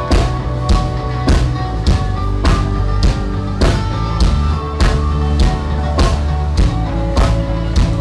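Background music with a steady drum beat, a hit about every 0.6 seconds, over held bass and melody notes.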